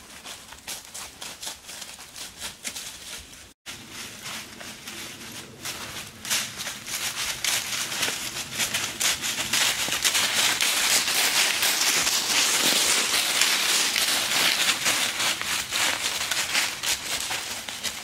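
A walking draft-cross horse's hooves crunching and rustling through dry fallen leaves. There is a short break about three and a half seconds in, and then the crunching grows louder as the horse comes close.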